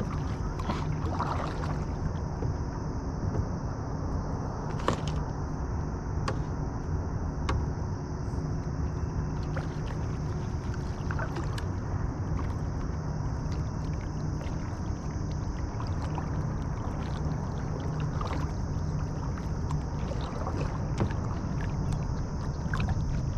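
Kayak on open water: a steady low rumble of water and air against the boat, with a few light scattered knocks on the hull.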